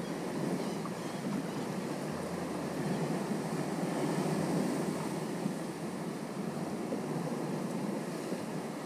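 Sea water lapping and sloshing against a kayak, with wind on the microphone: a steady rushing noise with no distinct strokes.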